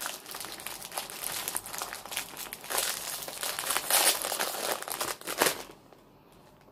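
Crinkling of a small plastic snack packet being pulled open by hand, a dense run of crackles that stops about five and a half seconds in.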